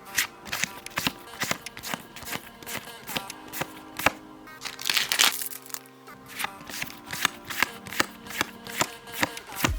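Background music with Pokémon trading cards being handled and slid through the hands: a run of irregular crisp clicks and flicks over the music.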